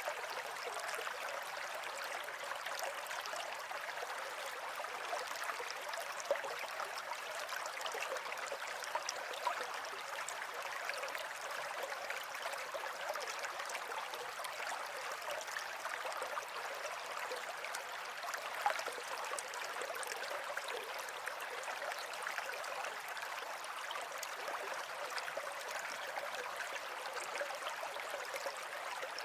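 A stream of running water: a steady babbling rush, with a few brief louder splashes.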